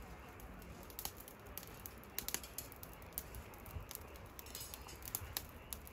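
Faint outdoor background: a low, steady rumble with scattered short, sharp clicks, the loudest a couple of seconds in and again near the end.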